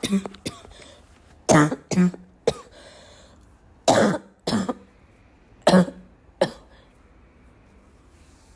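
A person coughing: a series of short, sharp coughs, mostly in pairs about half a second apart, with gaps of a second or two between pairs and a few fainter coughs at the start. The last pair comes about two-thirds of the way in.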